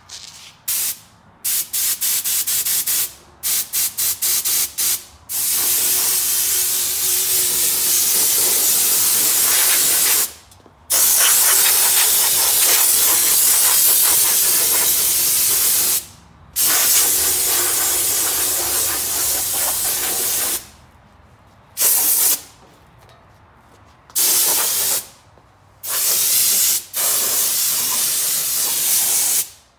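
Compressed-air spray gun with a siphon cup spraying Purple Power degreaser onto a small-block Chevy V8. It is a loud hiss in bursts: a run of quick short squirts in the first few seconds, then long sprays of about five seconds each, and shorter squirts again near the end.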